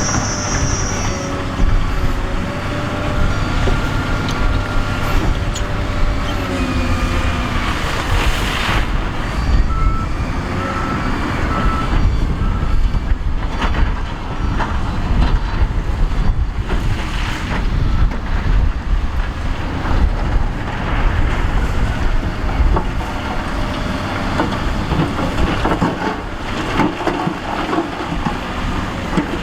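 Heavy diesel earthmoving machines running under load, a steady low engine rumble with a whine rising and falling. A sharp clank comes about eight and a half seconds in, and a reversing alarm beeps several times a little later.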